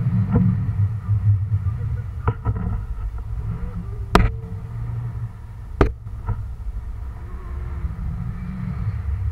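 Wind buffeting the microphone of a camera carried aloft under a parasail: a low steady rumble, with two sharp knocks about four and six seconds in.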